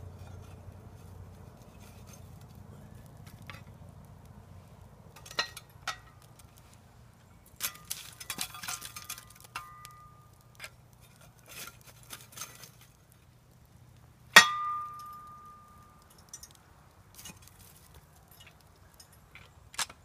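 Metal clinking and knocking as camp cookware and the metal fire grate are handled, with one loud clang about fourteen seconds in that rings briefly.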